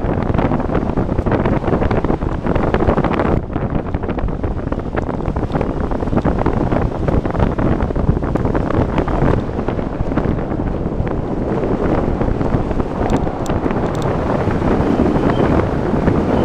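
Loud, steady wind buffeting the microphone of a pole-mounted camera, from the airflow of a tandem paraglider in flight.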